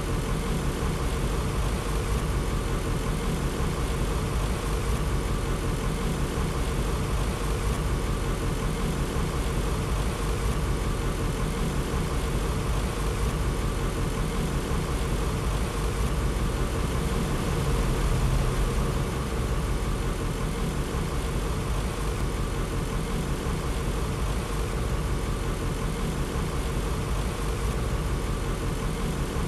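A large engine idling steadily: an even low rumble with a constant hum over it.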